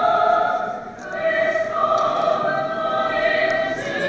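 Orthodox church choir singing slow, held chords, with a short break about a second in.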